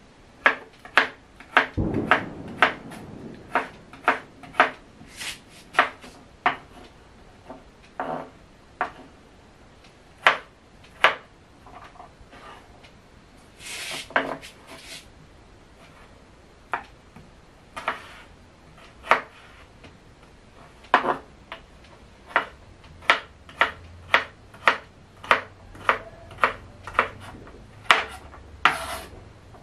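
Kitchen knife chopping radish on a wooden chopping board: irregular single sharp chops, about one or two a second, with a couple of longer scrapes of the blade across the board.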